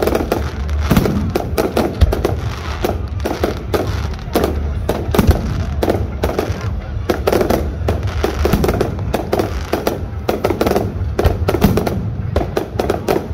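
Fireworks display: a rapid, continuous barrage of bangs and crackles with a deep rumble underneath.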